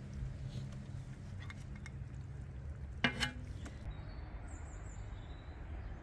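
Food being served outdoors from big pots over wood fires: a steady low rumble with a few light clicks, one sharp clank about three seconds in, and faint high chirps a little later.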